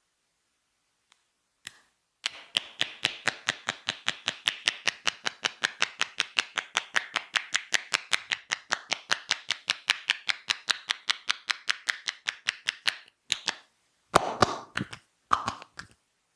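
Rapid percussive massage strokes: hands slapping evenly on the body, about five or six strikes a second for some eleven seconds, then stopping. Two louder, longer, fuller slaps follow near the end.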